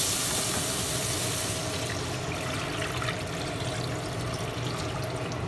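Water poured from a bowl into a hot frying pan of stir-fried tomatoes, splashing and filling the pan. The frying sizzle at the start dies down after a second or two as the water covers the pan.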